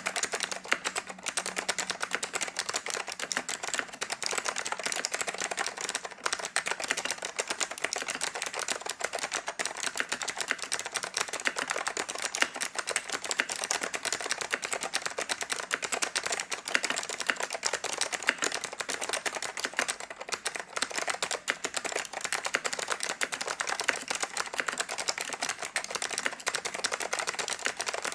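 Continuous fast typing on a DTK MBK-1013 mechanical keyboard with Alps SKCM White switches: a dense stream of crisp key clicks and keystrokes, with only brief pauses.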